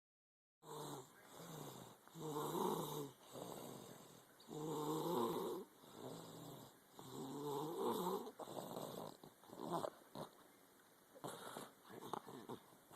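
Snoring from a sick sleeper: long buzzing snores about every two to three seconds, turning shorter and weaker near the end.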